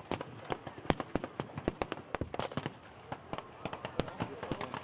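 Scattered blank gunfire from rifles and other small arms: irregular sharp cracks, a few a second, some overlapping.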